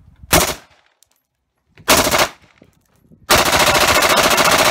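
M4-style carbine firing on full auto: a short burst, a second short burst about two seconds in, then a longer sustained burst of about a second and a half near the end.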